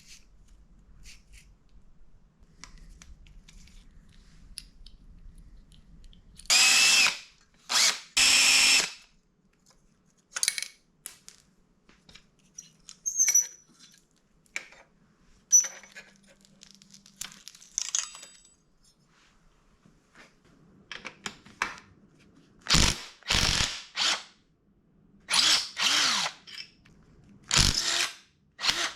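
A handheld power tool runs in short bursts: two longer runs of about a second each, then scattered clicks of tools and parts being handled, then a quick series of about five shorter bursts near the end.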